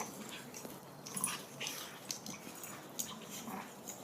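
Faint sounds of two dogs play-wrestling: scattered short scuffles, clicks and mouthing noises, with no barking.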